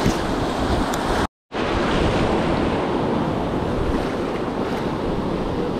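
Ocean surf washing and breaking around the wader's legs, with wind buffeting the microphone; the sound cuts out completely for a moment about a second and a half in.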